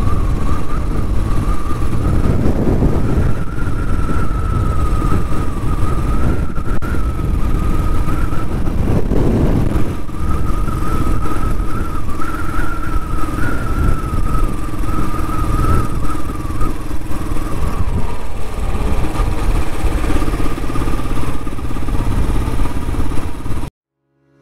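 Royal Enfield motorcycle being ridden: a deep, noisy engine and road rumble with a steady high-pitched whine above it. It cuts off suddenly near the end.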